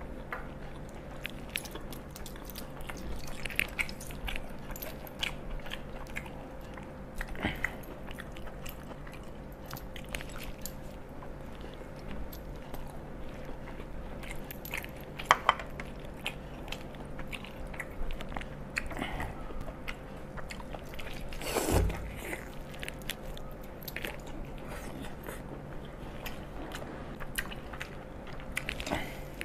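A person eating close to the microphone: chewing and biting into food with many small wet mouth clicks and crunches, over a faint steady hum. One louder, longer mouth noise comes about two-thirds of the way through.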